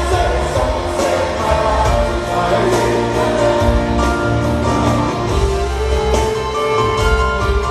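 Live concert music: a man singing a pop ballad while playing a grand piano, with a full band behind him.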